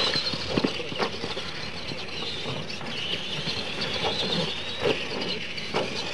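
Electric RC monster trucks racing on a dirt track: a high motor-and-gear whine that rises in pitch around the middle, with a few short knocks.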